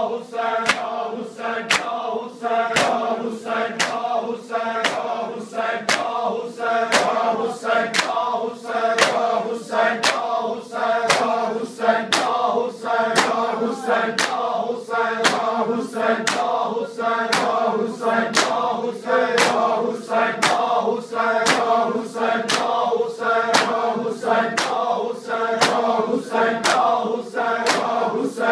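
A crowd of men chanting a Shia mourning lament (nauha) in unison while beating their bare chests with open hands in time (matam). The chest strikes make a steady beat of sharp slaps, a little under two a second.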